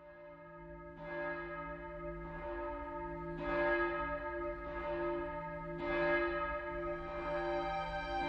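A large bell tolling, fading in from silence, then struck again about every second or so, about five strikes in all, its tones ringing on between strikes.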